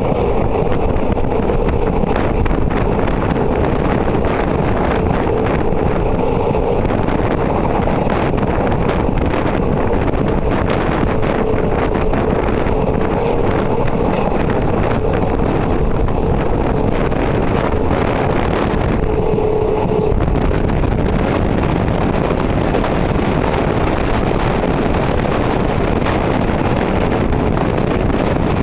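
Steady running noise of a moving vehicle heard from inside, with wind rushing past an open window. A steady hum runs underneath and stops about two-thirds of the way through.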